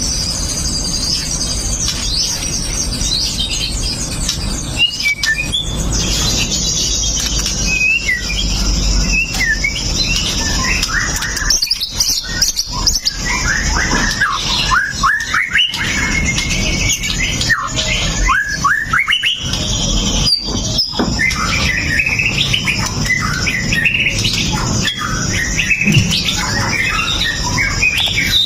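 White-rumped shama (murai batu) singing a continuous, varied song of quick rising and falling whistles and sharp notes.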